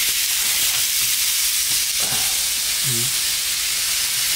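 Adana kebab and chicken skewers sizzling steadily on a hot electric grill plate.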